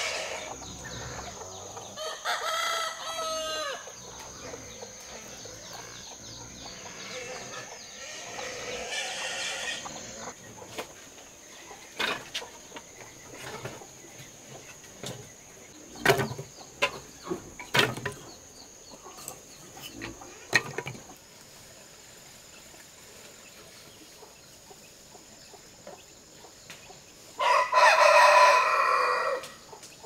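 Farm chickens calling: clucks and calls early on, and a loud rooster crow near the end, the loudest sound. In the middle come a few sharp wooden knocks as split firewood and offcuts are tossed into a fire chamber. A thin, steady high tone runs underneath throughout.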